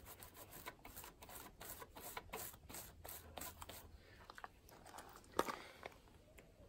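Small paint roller being worked back and forth in a ribbed paint tray to load it, a faint run of quick rubbing scrapes at about four a second, with one louder scrape about five seconds in.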